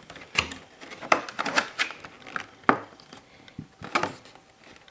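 Trading cards and the cardboard box they came in being handled on a table: irregular light taps, clicks and rustles, the sharpest just under three seconds in.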